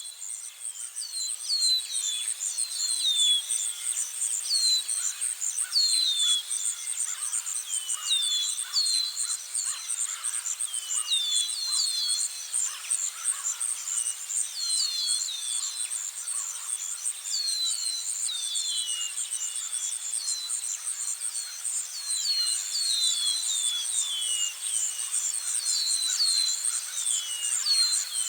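Insects trilling steadily in a high, fast pulse, with short falling chirps repeating in twos and threes every second or so.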